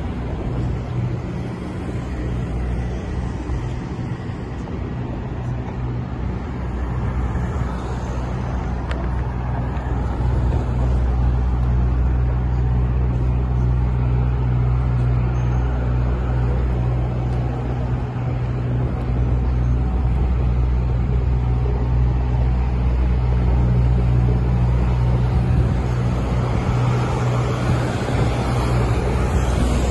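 City street traffic noise with a steady low engine drone, louder from about ten seconds in.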